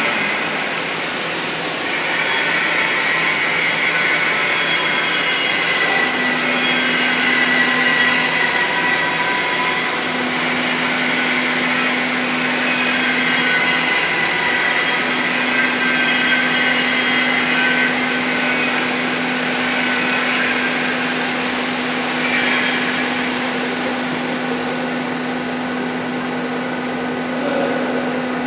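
Automatic pipe-welding arc on 4-inch carbon steel pipe, giving a steady hiss. A low steady hum joins about six seconds in.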